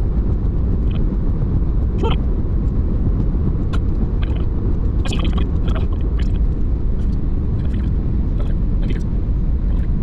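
Car driving, heard inside the cabin: steady low road and engine rumble with scattered light clicks and taps.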